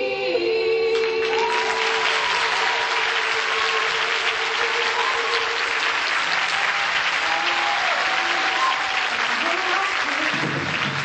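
Audience applauding and cheering at a school stage performance, with a long held note over the first half and scattered whoops.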